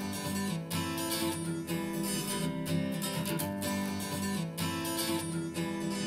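Pop song intro with strummed acoustic guitar chords in a steady rhythm, played back through Klipsch R-15PM powered bookshelf speakers and picked up in the room.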